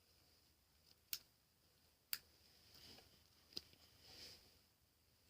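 Scissors snapping through dried-out, rubber-hard slime: three sharp clicks about a second apart, with softer crunching between them. It is a sound she fears means the slime is breaking her scissors.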